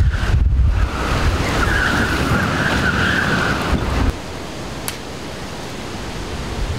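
Storm-force wind buffeting the microphone with a deep rumble and a high, wavering whistle over the rough harbour water. About four seconds in, it cuts to a quieter, steady rush.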